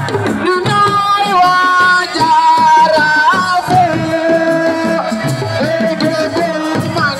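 Assiko music: hand drums beating a dense rhythm under a singer holding long notes that slide from one pitch to the next.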